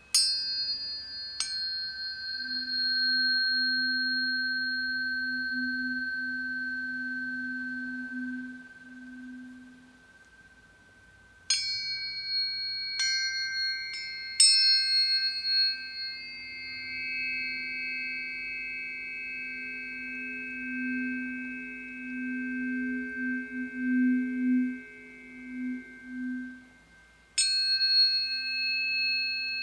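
Planetary tuning forks struck one after another, each strike leaving clear high ringing tones that slowly fade and overlap. There are two strikes at the start, three more in quick succession about halfway, and one near the end, over a low hum that swells and fades.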